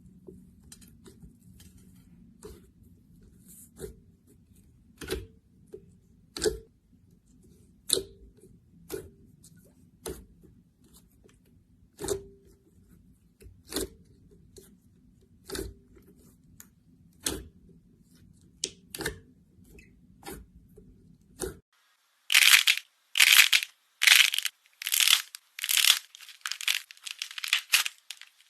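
Sharp pops and crackles about once a second over a low steady hum. About three quarters of the way in this switches to loud, rapid crunching, about two crunches a second, as a brittle crunchy material is pressed and broken.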